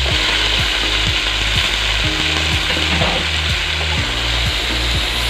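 Raw chicken pieces sizzling steadily in hot oil in a metal wok, with a spatula stirring them.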